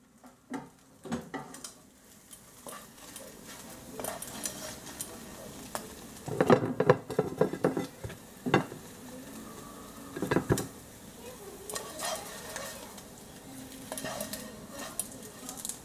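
Spatula scraping and knocking against a frying pan as fried mashed potato with bacon is slid out onto toast on a plate, the hot food sizzling faintly underneath. The knocks come irregularly, loudest in a cluster around the middle.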